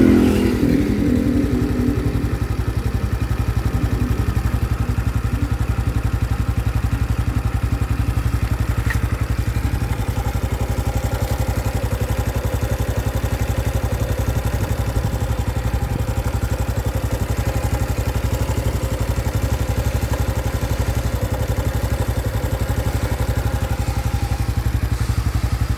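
Honda Biz 2025's single-cylinder four-stroke engine running close up, louder for the first second or so and then settling to a steady idle with an even, rapid pulsing. It is the new engine noise the owner says appeared after accelerating the bike to under 70 km/h.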